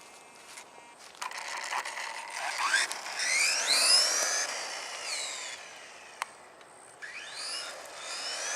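Losi 22 RC car's sensored 13.5-turn brushless motor whining as the car accelerates and slows, its pitch sweeping up and down. It speeds up from about a second in, eases off around five seconds, and speeds up again near the end, with a single sharp click in between.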